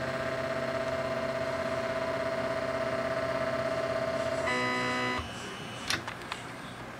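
CTC laser resin 3D printer's stepper motor whining steadily as it drives the mechanism through a peel/lift move. About four and a half seconds in it switches to a higher pitch, then stops abruptly; a few sharp clicks follow near the end.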